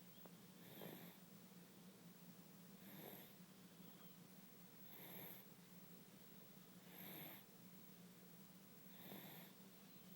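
Six-month-old baby snoring faintly in sleep, one snore about every two seconds, five in all, over a steady low hum.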